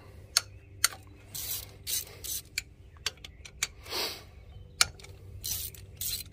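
Hand ratchet with a 12 mm socket clicking in short runs as a fuel rail bolt on a Gen 1 Prius engine is undone, mixed with sharp metallic clicks of the tool against engine parts.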